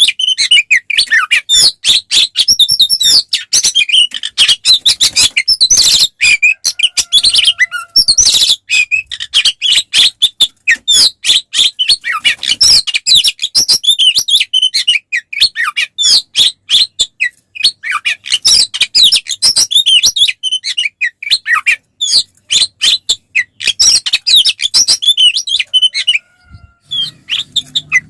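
Oriental magpie-robin (kacer) singing loudly and without a break, a rapid, varied run of chirps, trills and whistles. Its song pauses briefly near the end.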